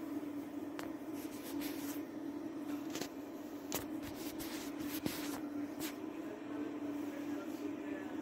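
A steady low hum with scattered sharp clicks.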